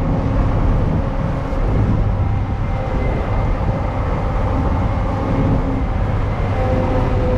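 Inside a moving bus: steady engine rumble and road noise, with a faint high whine running through it.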